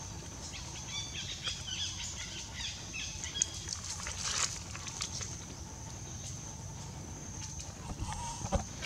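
Outdoor ambience: a steady high-pitched hum over a low rumble, with a few faint chirps in the first few seconds and scattered small clicks and taps.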